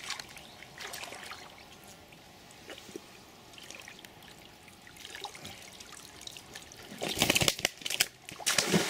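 Lake water trickling and dripping softly as a carp is held in the shallows, then loud splashing about seven seconds in as the fish is lifted out and water pours off it.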